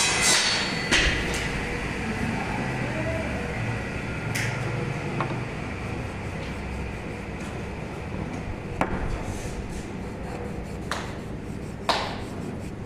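Several sharp knocks, a few seconds apart, of a hammer or mallet striking wood, as when wooden joinery pieces are tapped together; the last ones near the end are the loudest.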